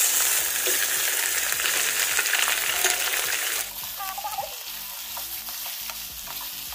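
Raw chicken pieces sizzling loudly in hot oil in a kadai as they are stirred with a wooden spoon, at the start of frying the meat. About three and a half seconds in, the sizzle drops to a quieter, steadier frying.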